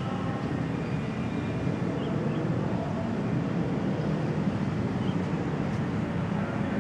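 Distant city traffic: a steady low rumble of urban background noise, with faint higher tones drifting in now and then.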